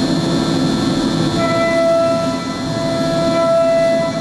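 MultiCam CNC router spindle cutting a plywood sheet: a steady machine noise with a whine that comes in about a second and a half in and holds.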